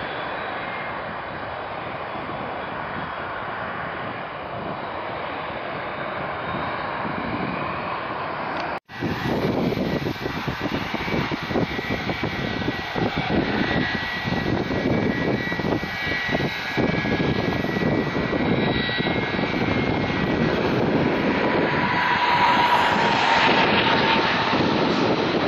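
Jet noise at the airfield, then after a cut United Airlines Boeing 767-322ER on final approach: its turbofan engines run with a steady high whine over a rushing roar. The sound grows louder as the jet comes close overhead near the end.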